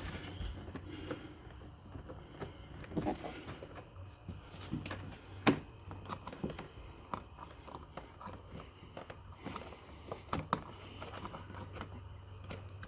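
Scattered light clicks, knocks and scrapes of a plastic charger plug and its wire being handled and fed into a mount in a plastic ATV dash panel, over a steady low hum.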